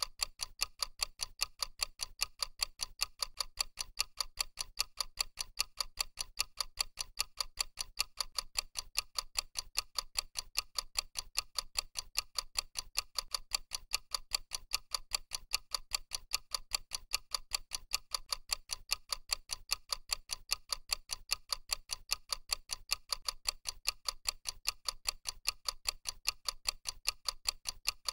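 Clock-style ticking sound effect of a countdown timer: a fast, even run of sharp ticks that goes on without a break.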